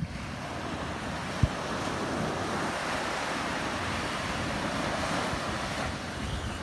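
Surf washing steadily onto a sandy beach, with wind rumbling on the microphone. A single low thump about one and a half seconds in.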